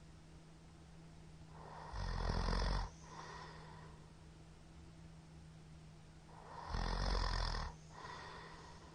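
A man snoring loudly in his sleep: two snores about five seconds apart, each lasting about a second and followed by a fainter tail, over a steady low hum.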